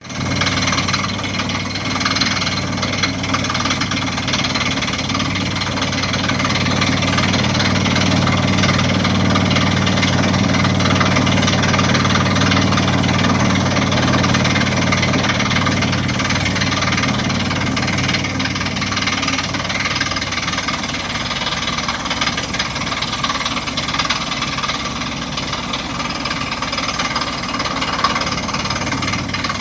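Borehole drilling rig running steadily: a low engine drone under a broad, noisy rattle. The engine note eases a little about two-thirds of the way through.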